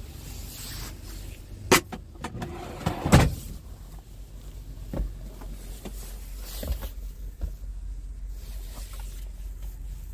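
Hard plastic knocks and clunks of a truck cab's under-bunk pull-out fridge being shut: two sharp knocks about two and three seconds in, then a few lighter taps, over a steady low hum.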